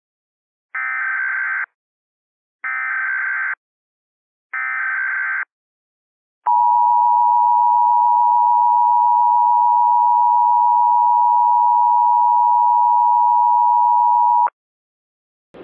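Emergency Alert System tones: three short bursts of SAME header data, each just under a second, followed by the two-tone attention signal held steady for about eight seconds. It opens an emergency action termination, the all-clear message.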